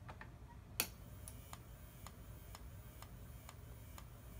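Strobe flash bulb driven by a repaired Whelen HDA-DF-14 strobe power supply, ticking each time it fires: one sharper, louder click about a second in, then regular ticks about twice a second, showing this output is working.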